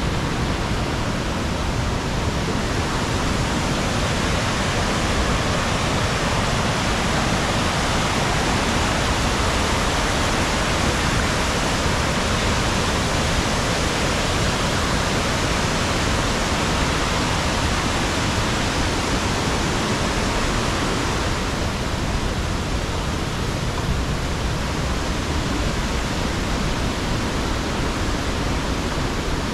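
Waterfall: a steady, even rush of falling water, slightly softer in its higher part from about three quarters of the way through.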